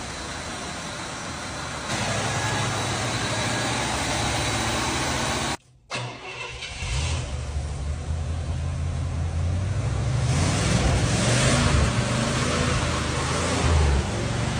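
500-cubic-inch big-block V8 running just after being started, with a steady rumble; after a brief break it runs on with a heavier rumble and a few rises in revs.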